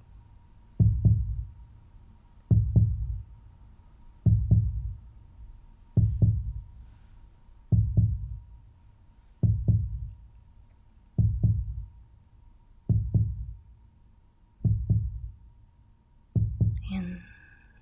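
Slow, steady heartbeat sound: a deep thump about every second and three quarters, ten beats in all.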